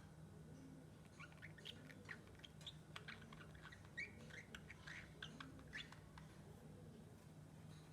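Pet lovebird giving soft, short chirps and squeaks in quick scattered runs, thinning out after about six seconds, over a faint steady low hum.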